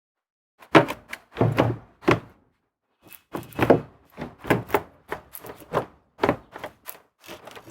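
Hard plastic cowl panel under the windscreen wipers being fitted, knocking and clicking irregularly as it is handled and pressed into place.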